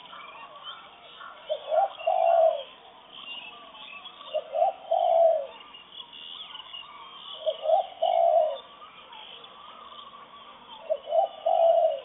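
A dove cooing: a phrase of two short notes and one longer drawn-out note, repeated four times about every three seconds. Small birds chirp faintly behind it in a morning chorus.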